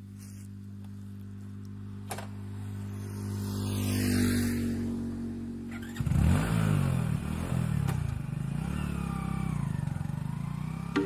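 Small commuter motorcycle idling, with another vehicle passing and swelling in loudness around four seconds in. About six seconds in the motorcycle suddenly revs and pulls away, its engine note rising and falling as it rides off and fades.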